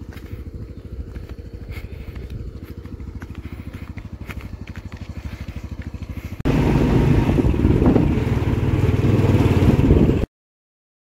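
Small motorcycle engines running with a steady low pulse. About six seconds in, the sound jumps to a much louder ride from a moving motorcycle, engine with rushing noise, and it cuts off suddenly near the end.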